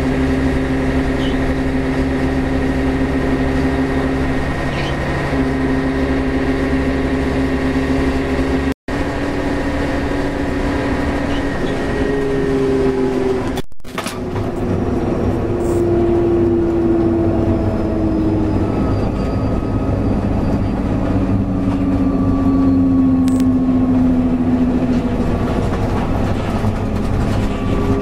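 Scania DSC11 diesel engine and Voith D864 automatic gearbox of a Scania CN113 city bus, heard from inside the bus. First a steady whine, broken by a brief dropout about nine seconds in. After a second short break near the middle, several whines fall in pitch as the bus slows on a slight downhill.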